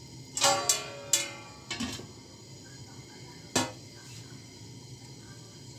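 Kitchen utensils clinking against a mixing bowl: a quick run of clinks with a brief ringing tone in the first two seconds, then one sharp clink about three and a half seconds in.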